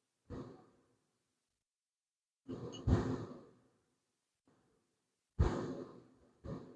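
A man sighing and exhaling heavily four times close to the microphone. The second and third breaths are the loudest.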